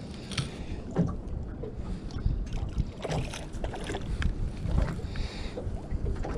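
Wind buffeting the microphone over water slapping against a small aluminium boat's hull, with scattered knocks and clicks and a short hiss about five seconds in.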